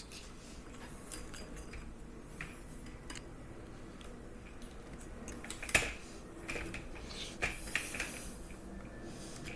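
Small metal parts clinking and tapping as they are handled, a few scattered clicks with a sharper one about six seconds in.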